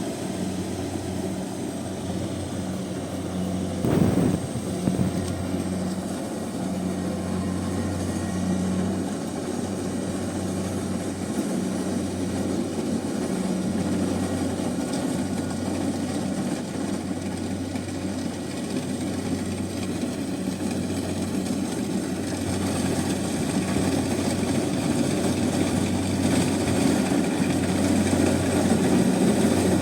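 Rice combine harvester running steadily at work, a continuous engine drone. There is a sharp knock about four seconds in, and the sound grows louder over the last several seconds as the machine comes closer or works harder.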